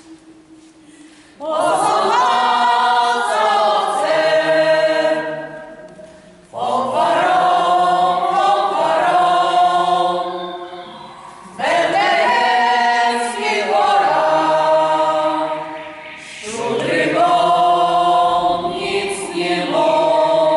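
Small folk choir singing a Polish regional Christmas carol (kolęda) a cappella, in four phrases with short breaks for breath between them. A faint held low note comes before the first phrase begins, about a second and a half in.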